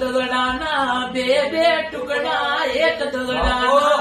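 A voice singing a song, holding long notes that bend and waver in pitch.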